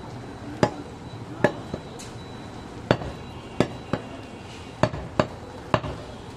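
Butcher's cleaver chopping goat meat on a wooden log chopping block: about nine sharp strikes, unevenly spaced.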